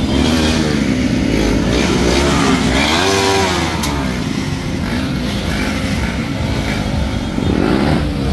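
Several small motorcycles running close by as they ride off in a group, their engines revving and easing off. One rev rises and falls about three seconds in, and another comes near the end.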